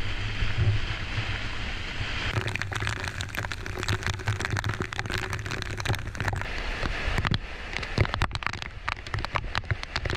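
Heavy squall rain pelting the sailboat's deck and the camera, a dense patter of drops, over a low rumble of wind on the microphone.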